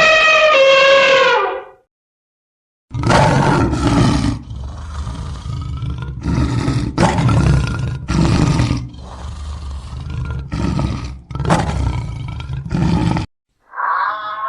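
A large animal roaring in a run of loud, rough calls about a second or less each, heavy and low. Before them a brief pitched, tooting call ends about two seconds in.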